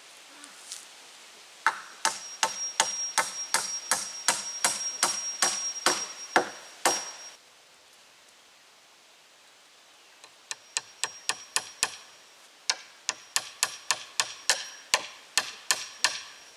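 Hammer blows driving nails into wooden tree-pole fence rails: two runs of quick, even strikes, about three or four a second, with a thin high ring under the blows and a pause of about three seconds between the runs.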